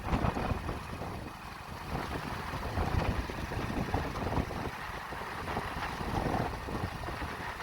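Hero Splendor Plus motorcycle on the move, its engine running under a steady rumble of road noise.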